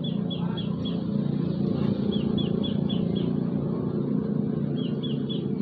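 A steady low motor hum, like an idling engine, runs throughout, while a small bird chirps in quick runs of high notes, about five a second, three times.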